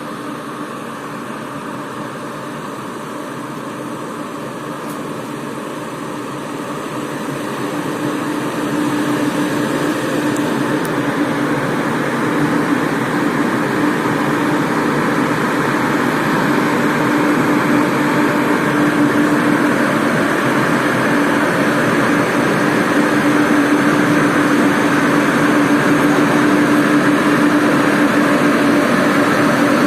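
Electric express train with ICF coaches pulling out and rolling by: a steady rumble of wheels on rail with a constant hum. It grows louder about eight seconds in, then keeps building slowly as the train gathers speed.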